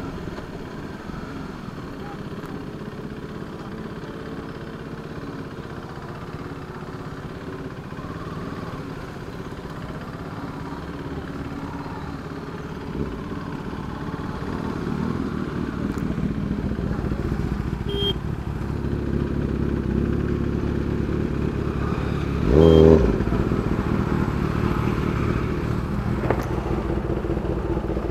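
Motorcycle engine running under way, heard with wind and road noise from the rider's helmet, its note growing louder about halfway through in slow traffic. A brief, loud pitched blast sounds about 23 seconds in.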